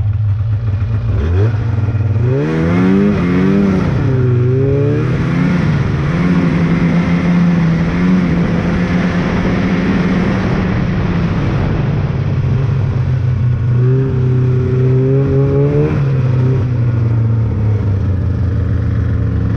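An old 488 snowmobile's two-stroke engine idles, then about a second in revs up as the sled pulls away. Its pitch rises and falls with the throttle for a few seconds, holds at a steady riding speed, dips briefly past the middle and climbs again before settling.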